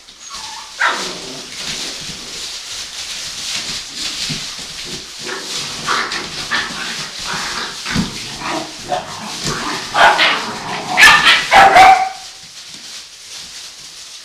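Eight-week-old puppies playing: short yips and barks over a constant rustle of shredded-paper bedding, with the loudest burst of barking about ten to twelve seconds in.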